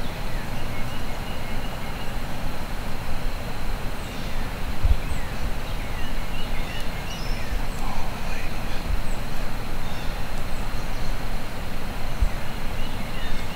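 Songbirds chirping here and there over a steady low rumble, with a few dull low thumps.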